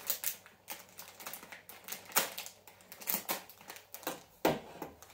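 A plastic candy bag being cut open with a small knife: irregular crackles and clicks from the film, with one louder snap about four and a half seconds in.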